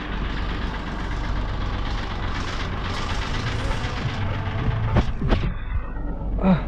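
Goods truck's engine running with a steady low rumble, with a noisy haze over it, and two sharp knocks about five seconds in.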